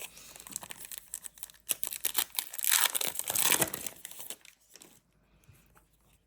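A plastic-foil trading card pack being torn open and its wrapper crinkled, with light crackles first and the loudest crinkling a little before the middle, dying away to a few faint ticks near the end.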